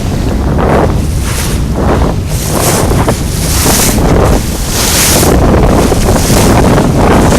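Strong gusty wind blowing hard across the microphone: a heavy, constant low rumble with hissing surges that rise and fall about once a second.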